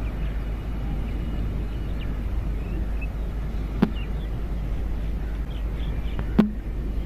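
Outdoor shoreline ambience: a steady low rumble with faint, brief high chirps. Two sharp clicks, the first about four seconds in and the second, louder one about six and a half seconds in.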